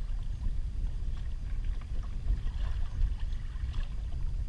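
Wind buffeting and choppy water slapping against a kayak in rough seas, heard as a low, irregular rumble.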